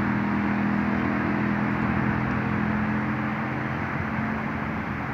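Steady low mechanical hum over a rushing noise, with droning low tones that fade about four seconds in.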